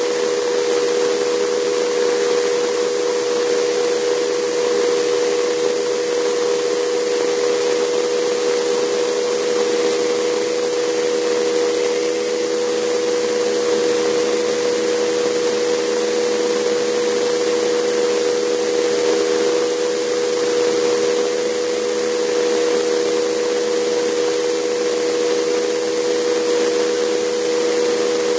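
JetCat PHT2 model turboshaft and rotor system of a Vario Alouette II RC scale helicopter in flight, heard close up from the airframe: a steady whine of several close tones over a loud, even hiss.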